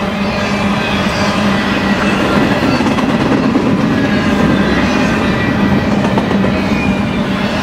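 Intermodal freight train cars rolling past close by, steel wheels running over the rails in a loud, steady rumble with a constant low hum.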